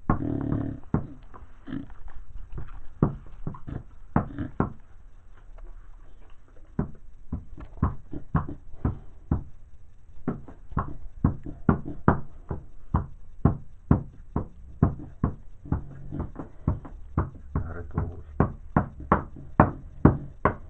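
Bulldog snoring: short, sharp, noisy breaths in quick succession, about two to three a second, with a pitched rasp between some of them near the end.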